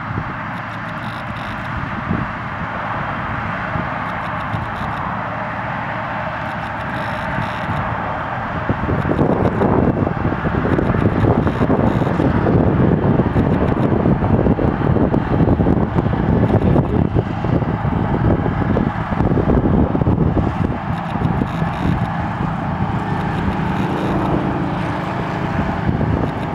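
Heavy harvest machinery running steadily. About a third of the way in it grows louder and fuller and stays loud.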